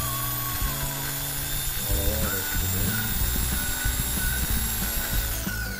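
Makita M0600 electric drill running at speed through an SCR speed controller, a steady high motor whine. About five seconds in the whine starts falling in pitch as the motor slows.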